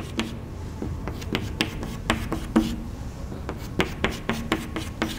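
Chalk tapping and scraping on a chalkboard as short lines and dashes are drawn: an uneven string of sharp taps, about three a second.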